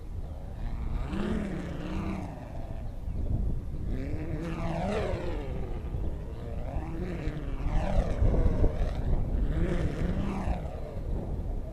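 Revolution Supersonic quad-line stunt kite humming and buzzing as its sail cuts through the wind, the pitch swelling and falling with each sweep across the sky, over wind rumble on the microphone.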